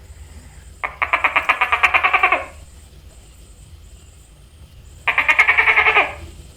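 Tokay gecko calling: two fast runs of pulses, about a dozen a second, the first lasting about a second and a half and the second about a second.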